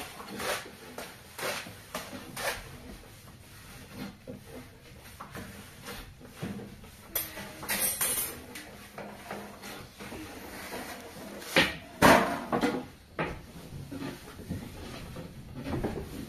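Irregular knocks and clatter of cooking pots and utensils being handled, with a louder pair of knocks about twelve seconds in.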